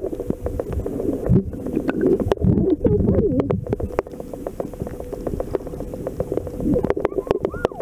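Muffled underwater sound picked up by a submerged camera in shallow water: a low rumble of moving water with many sharp clicks and crackles throughout, and a faint steady hum.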